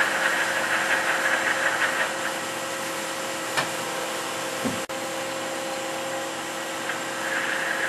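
Daewoo ACE-H100 horizontal machining center indexing its pallet table: a steady machine hum with a higher whine that drops away about two seconds in, then a click and a short knock about midway.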